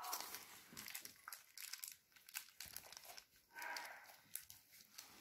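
Small plastic packet crinkling and tearing as it is opened by hand, in faint, irregular crackles.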